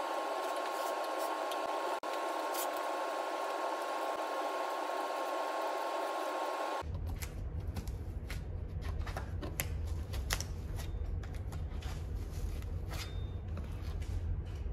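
A vacuum cleaner runs steadily with a high whine, then cuts off abruptly about seven seconds in. After that, painter's tape crackles and clicks as it is pulled off the roll and pressed along a baseboard, over a low rumble.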